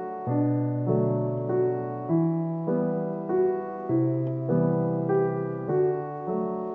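Background piano music: a gentle melody of sustained notes, changing about twice a second.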